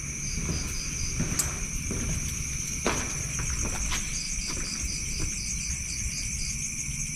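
Night insects and crickets chirping: a steady high trill, with a second insect's short chirps coming in quick runs of about five a second twice. A few soft footstep scuffs and a low rumble sit underneath.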